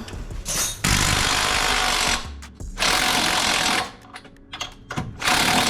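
Impact wrench hammering on transmission bolts in three bursts of about a second each, starting and stopping abruptly, about a second in, about three seconds in and near the end.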